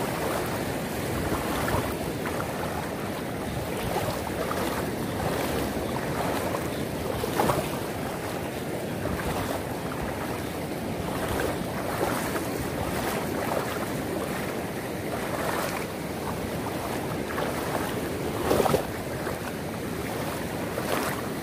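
Shallow seawater and surf rushing steadily, with wind on the microphone and the splashing of legs wading through the water; two louder splashes stand out.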